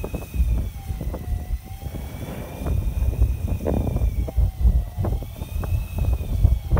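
Wind buffeting the microphone over the low rumble of a fishing boat at sea, with short sharp knocks from waves slapping the hull. A faint whine rises and falls slowly underneath.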